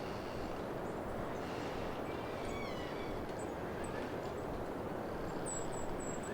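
Wind rushing through pine trees, with a pine trunk creaking in the wind: one short squealing creak that slides down in pitch about two and a half seconds in. A few faint high chirps sound near the end.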